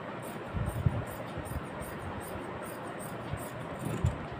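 Steady background hiss with a few soft low thumps, about a second in and again near the end.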